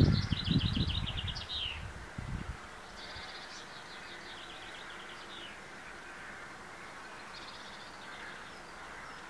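A songbird singing a fast trilled phrase that drops in pitch at the end, repeated about every three seconds. Loud low rumbling noise in the first two and a half seconds, then a faint steady outdoor background.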